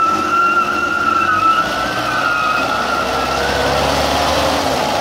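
Toyota Land Cruiser and tractor engines running hard under load as the two pull against each other on a chain. A high, wavering squeal sits over the engine noise for the first three and a half seconds or so.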